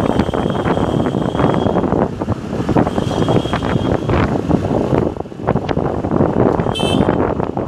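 Wind buffeting the microphone of a phone carried on a moving two-wheeler, over road and traffic noise. A short high-pitched ring sounds near the end.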